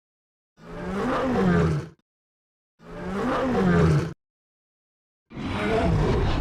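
Custom-made King Kong roar sound effects: three separate roars, each rising and then falling in pitch, with dead silence between them. The first two are nearly identical, each about a second and a half long. The third starts near the end and carries on.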